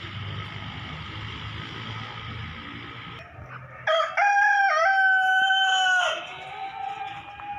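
Aseel rooster crowing once, about four seconds in: a short rising start, a brief break, then a long held note of about a second and a half.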